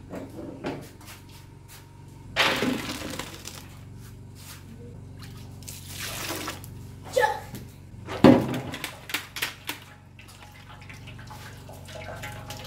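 Water splashing as rice is rinsed and poured through a perforated metal colander into a metal basin, in a few pours. A loud knock of metal comes a little past the middle.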